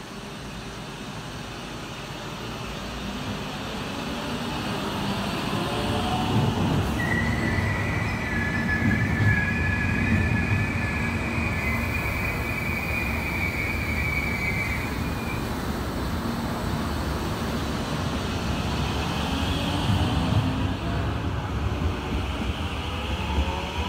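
Stadler ABe 4/12 metre-gauge electric multiple unit running in, its rumble growing louder over the first few seconds, with a high steady wheel squeal lasting several seconds in the middle. Near the end the rumble swells again and rising tones come in as the train moves along the track.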